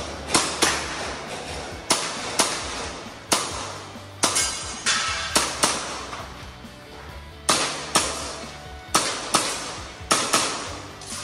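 A string of sharp airsoft gas-blowback pistol shots fired at irregular intervals, many of them in quick pairs (double taps on targets), each with a brief ringing tail. A steady low background of music runs underneath.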